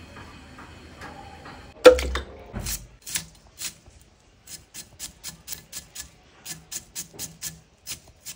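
A sharp knock with a brief ring about two seconds in, then a run of crisp cuts as an onion is sliced against a curved boti blade, settling into about four slices a second.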